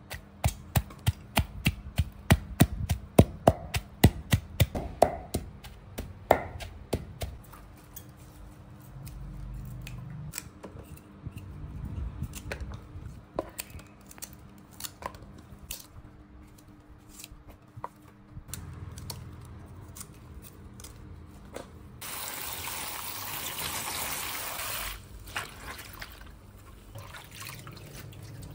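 A pestle pounding a spice paste with garlic in a mortar, two or three sharp knocks a second for the first seven seconds or so. Then water splashes and drips as water spinach is washed by hand in a bowl, with a tap running for about three seconds near the end.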